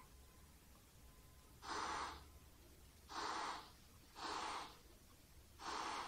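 A person breathing heavily: four separate breaths, each about half a second long, with short pauses between them.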